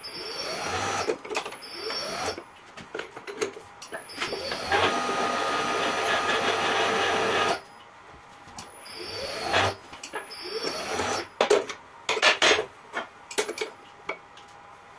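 Hand-lever cold-forging bending machine bending a twisted steel bar around its die: the steel creaks and scrapes in repeated rising squeaks. In the second half come a run of sharp metallic clanks as the bending pin and lever are handled.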